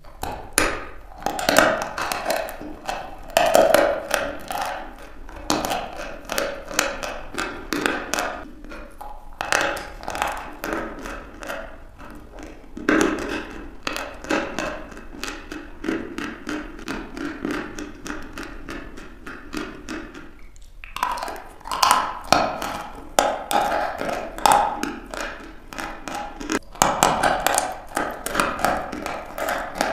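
A block of chalk bitten and chewed close to the microphone. There are many sharp crunches and snaps as pieces break off, coming in loud clusters between stretches of softer chewing.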